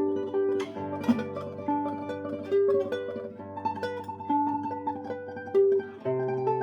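Solo classical guitar playing a sustained, tremolo-style melody over plucked bass notes.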